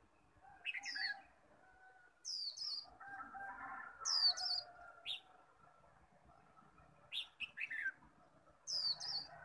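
Caged white-eye (khuyên) singing short, high-pitched twittering phrases, each falling quickly in pitch, about six of them spaced a second or so apart.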